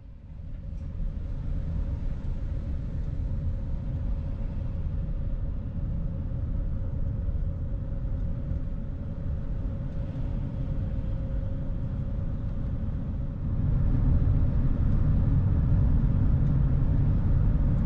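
A vehicle driving along a paved road: a steady low rumble of engine and tyre noise with a faint steady whine, growing louder about two-thirds of the way through.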